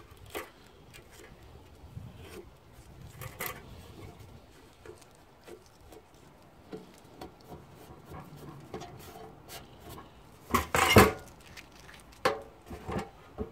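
Thin sheet-metal tool box being handled: soft rubbing and small clinks while it is wiped with a cloth, then a loud metallic clatter about eleven seconds in and a few sharper knocks near the end as the box is set down and moved on the wooden table.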